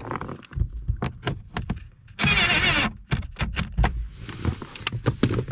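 Scattered clicks, taps and knocks of hands and tools handling plastic parts and the blower motor's wiring connector under a Jeep Wrangler JK dash. A loud noisy burst lasting under a second comes about two seconds in.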